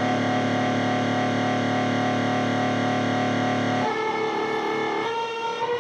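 ESP M-300FM electric guitar played through a Canyon effects pedal in sample-and-hold (S&H) mode, a distorted chord sustaining in a warbling tone meant to imitate a purring cat. About four seconds in the chord changes to higher notes, and it changes again about a second later.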